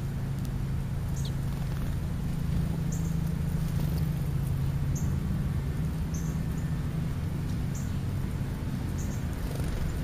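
Short high chirps repeated about every second and a half, most likely from the house sparrows at the food pile, over a steady low hum.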